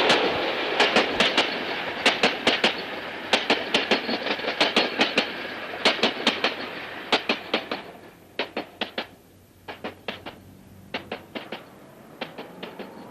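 A train passing, its wheels clacking over rail joints in quick groups of about four over a steady rumble. The rumble fades after about eight seconds, leaving sparser, quieter clacks as the train moves away.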